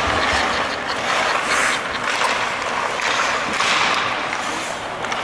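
Hockey practice on an ice rink: skate blades scraping and carving on the ice in swelling rushes, twice rising noticeably, with scattered faint clicks of sticks and pucks.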